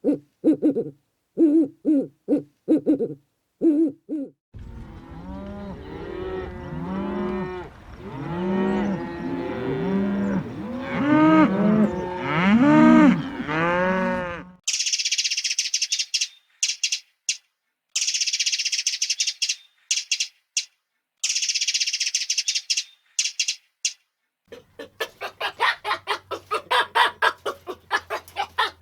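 A run of animal calls, one after another: short low hoots repeated about twice a second, then a herd of cattle mooing over one another for about ten seconds, then high-pitched chirping in bursts with short gaps, and near the end rapid clucking over a low hum.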